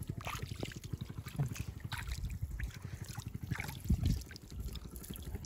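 Faint, scattered small splashes and drips of water at a pond's edge, with light wind on the microphone.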